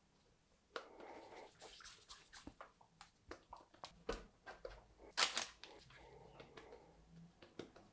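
Hands rounding soft gluten-free brioche bun dough on parchment paper over a metal baking tray: faint rustling of the paper with soft pats and taps, the loudest tap about five seconds in.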